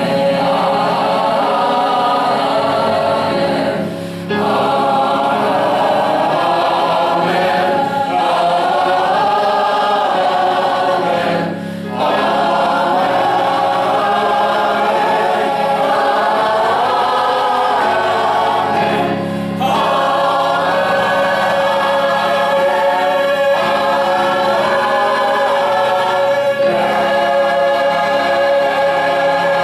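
A choir singing in harmony, with sustained sung notes and short breaks between phrases about every seven to eight seconds.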